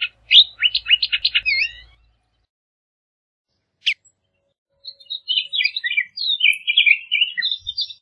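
Bullock's oriole singing: a quick phrase of whistled notes at the start, a single sharp note about four seconds in, then a longer jumbled phrase of whistles and chatter near the end.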